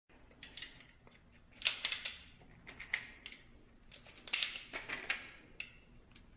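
9mm brass cartridges being pressed one at a time into a pistol magazine: sharp metallic clicks and clatters in irregular clusters as each round snaps under the feed lips.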